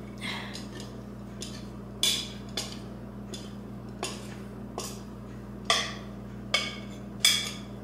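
Irregular knocks and clatters of a glass mixing bowl being tipped upside down and handled against the counter as bread dough is turned out of it, about ten in all with three louder ones, each ringing briefly.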